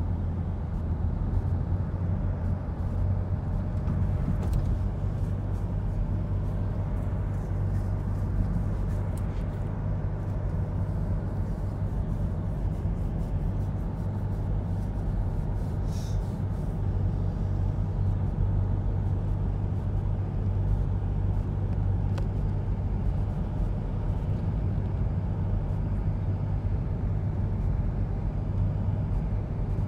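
Steady low rumble of a car driving, heard from inside the cabin, with no change in pitch or loudness.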